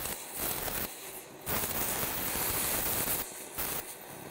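Multiplaz plasma welding torch's arc hissing and crackling as it fuses filler rod into a steel exhaust pipe, louder for a couple of seconds in the middle.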